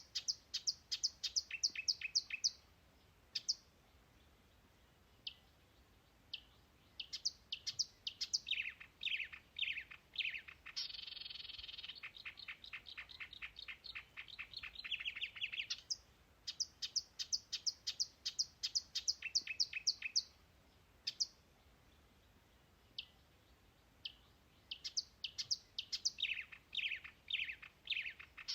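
Songbird singing in repeated phrases: a quick run of high chirps, then a few falling notes and a fast buzzy trill, each phrase a few seconds long with short pauses between.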